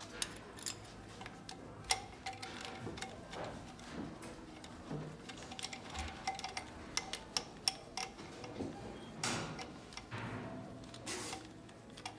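Faint, irregular clicks and metallic clinks of a wrench and the compression tester fittings being worked on the cylinder head of a Renault K9K 1.5 diesel engine.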